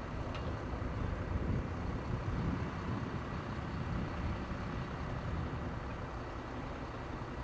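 Robin DR400/140B light aircraft's four-cylinder piston engine and propeller droning steadily, a low rumble.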